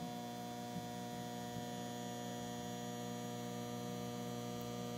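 Steady mains hum from a linear (transformer-fed) bench power supply as it is loaded up to nearly 20 amps: a buzz of several steady tones, growing a little louder through the few seconds.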